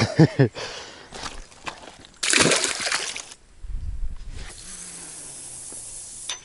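Water sloshing and splashing as a hooked bream is brought into the landing net, with a loud burst of splashing about two seconds in. A steadier hiss follows near the end.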